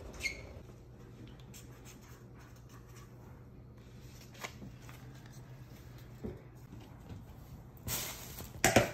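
Light handling sounds of paper sticky-note labels being set down beside ceramic cupping bowls on a stone countertop: a few soft taps and rustles, with two louder rustling bursts near the end, over a low steady hum.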